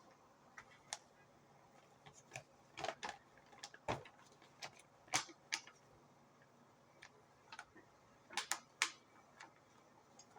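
Irregular light clicks and taps of small objects being handled, with a few louder clusters about three, five and eight and a half seconds in, over faint room tone.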